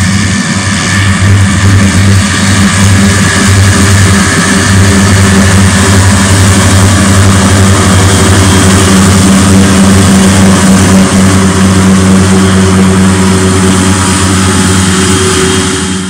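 Case IH tractor mowing grass with a front-and-side disc mower combination, its engine running steadily under load. The sound grows louder over the first couple of seconds as the tractor comes closer, then holds steady.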